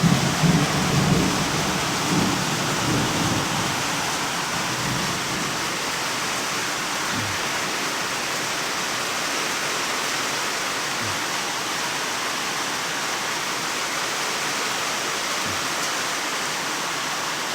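Heavy, steady rain of a thunderstorm. A thunder rumble dies away over the first few seconds.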